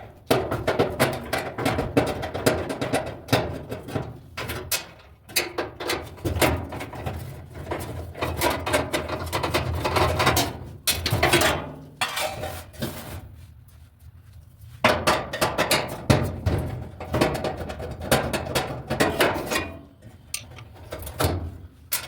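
Irregular metallic clanks, knocks and rattles of hand work on a clothes dryer's drum-support parts, as a drum roller with a failed bearing is taken off. It goes quieter for a couple of seconds a little past the middle.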